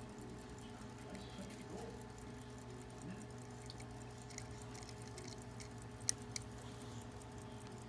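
Faint steady electrical hum, with one sharp click about six seconds in and a fainter click just after.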